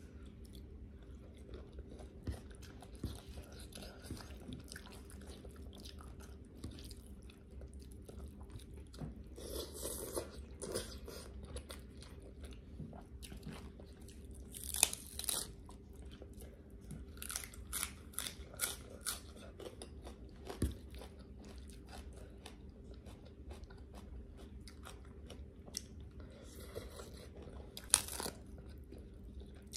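Close-up eating sounds: chewing and crunching on a spicy Thai noodle salad with pork cracklings and romaine lettuce, in irregular bursts of crunches that are denser and louder around the middle, over a faint steady hum.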